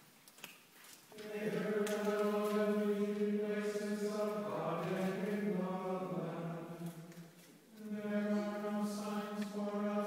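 Chanting voices singing long, held notes, starting about a second in, with a short break near the end before the chant resumes.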